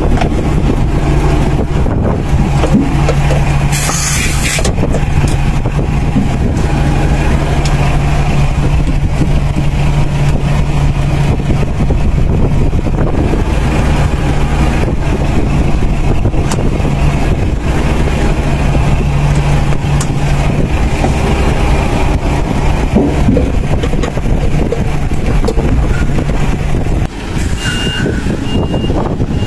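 Heavy truck's diesel engine idling steadily. About four seconds in there is a short hiss of compressed air. Near the end, reversing beeps start repeating at an even pace.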